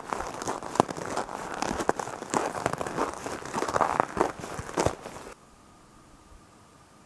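Footsteps crunching on packed snow, about two steps a second, with a rustle between them; they stop abruptly about five seconds in, leaving only a quiet steady background with a faint hum.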